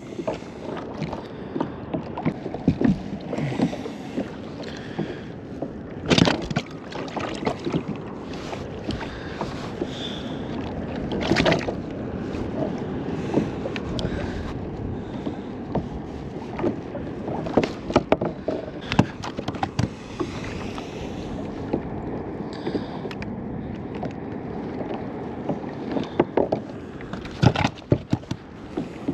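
Water lapping and sloshing against a fishing kayak on calm sea, with scattered sharp knocks now and then.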